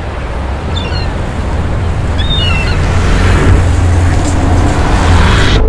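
A loud rushing noise with a deep rumble underneath, swelling steadily louder and cutting off suddenly near the end; a few faint chirps sound in the first half.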